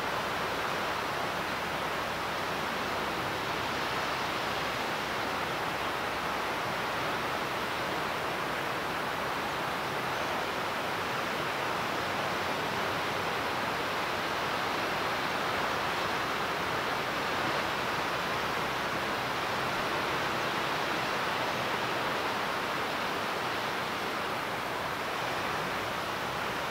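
Steady, even rushing noise with no distinct calls, knocks or other events.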